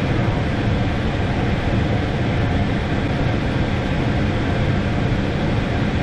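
Air-conditioning air handler's blower fan running, a loud steady deep whoosh heard close up, the unit running again with power restored.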